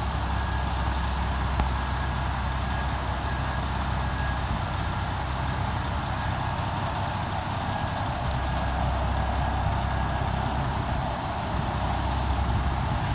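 Steady road traffic noise, a low rumble of cars and trucks with no single vehicle standing out.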